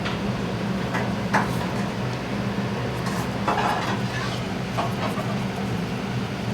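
Food stall kitchen ambience: a steady low machine hum with scattered clinks and knocks of utensils and cookware.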